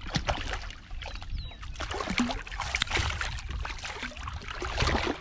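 A hooked catfish splashing at the water's surface beside a kayak as it is reeled in and landed: repeated short, irregular splashes and sloshing water.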